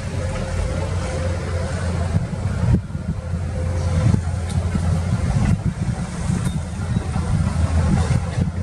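Diesel engines of Komatsu PC210 crawler excavators running steadily as they dig and swing loads, with a few sharp knocks from the machines working.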